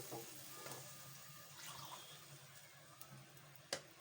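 Water being poured into a cooking pot of fried onions, faint and fading, with a sharp click near the end.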